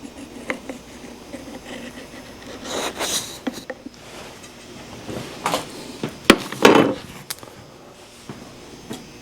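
Hand-handling noises at a workbench bandsaw: a workpiece being slid, rubbed and set in place. There are two bursts of scraping, with a sharp knock between them; the saw itself is not running.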